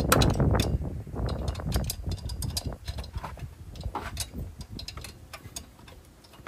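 Scattered light clicks and taps of hands handling parts around a car's engine bay, with a low rumble of wind on the microphone for about the first second.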